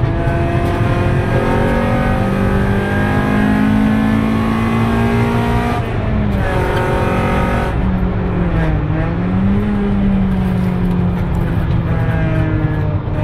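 Car engine running hard, heard from inside the cabin on a circuit lap: revs climb gently, fall away sharply about six seconds in, dip and pick up again around nine seconds in, then hold steady.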